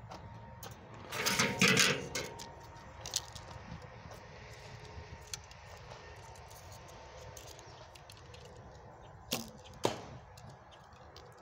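A recurve bow shot: the string snaps on release about nine seconds in, and half a second later the arrow strikes the target. About a second in there is a louder burst of rustling noise.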